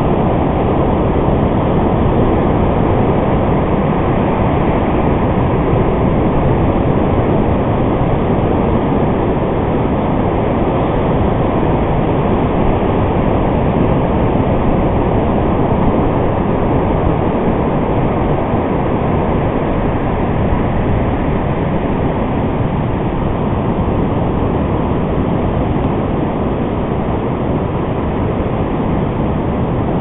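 Ocean surf and wind on the microphone: a loud, steady noise with no distinct events.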